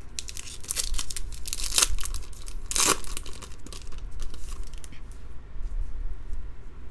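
Foil wrapper of a 2015 Bowman Draft baseball card pack being torn open and crinkled by hand: a run of tearing and crackling over the first three seconds, loudest twice near the end of it, then fainter rustling.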